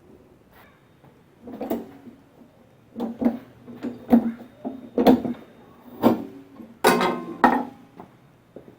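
Irregular knocks and clunks, about nine of them, from parts and tools being handled on a push mower's engine, some with a short ring.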